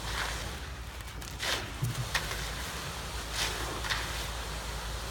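Wet concrete being raked and worked by hand, giving a few short swishing, splashing scrapes, about a second and a half in and twice more near three and a half to four seconds, over a steady low rumble.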